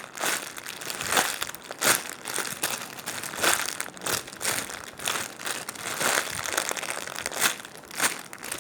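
Crinkling and rustling as a squishy toy is handled and squeezed, in a run of irregular crackly rustles.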